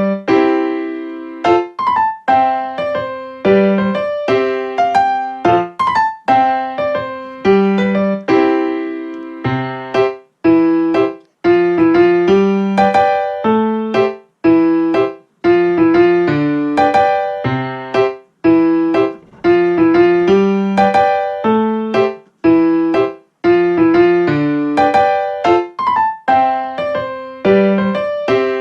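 Background music: a piano or electric-piano tune with struck notes that fade away, played at a steady pace.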